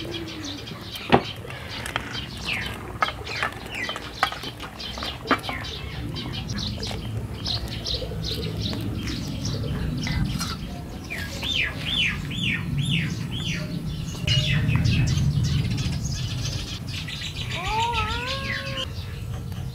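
Small birds chirping and singing, with a run of five quick falling notes about halfway through and rising, wavering calls near the end. A sharp metal clink about a second in, as the wok lid is lifted, over a low steady rumble.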